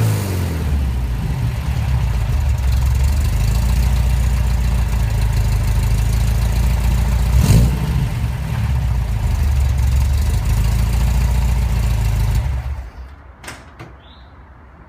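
The 1973 Porsche 914 2.0's air-cooled flat-four idles steadily. There is one sharp crack about seven seconds in. The engine switches off about twelve and a half seconds in, and a few faint clicks follow.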